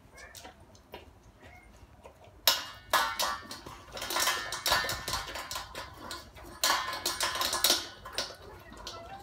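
A golden retriever eating dry kibble from a stainless steel bowl: crunching and the clatter of kibble against the metal bowl in irregular bursts, louder from about two and a half seconds in until near the end.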